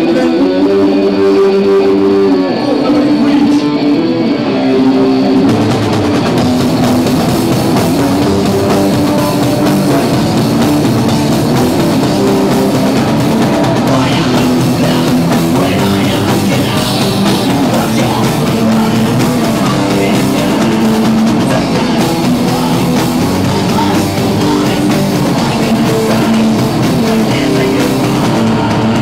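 Live rock band playing loudly on amplified electric guitars: a guitar part alone at first, then the drums and the full band come in about five seconds in and play on.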